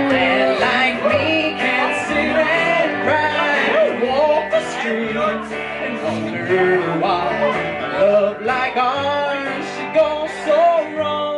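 Live country music from a small band: electric guitar, upright bass and acoustic guitar playing together with a steady beat.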